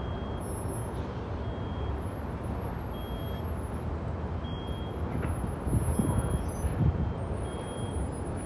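Heavy demolition machinery running with a steady low rumble, a reversing alarm beeping about once a second. The rumble swells louder around six seconds in.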